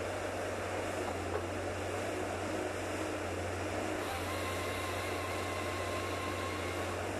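Komatsu XT450L-2 tracked forestry machine's engine running steadily under hydraulic work as its boom positions the felling head on a tree. A faint steady whine joins about four seconds in.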